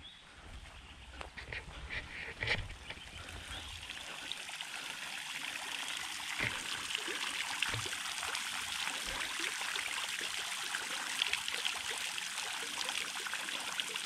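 A few low thumps at first, then a homemade fountain driven by a small submersible sump pump, spraying water up from a floating PVC frame. The spray falls back onto the pond surface in a steady splashing trickle that builds after about four seconds.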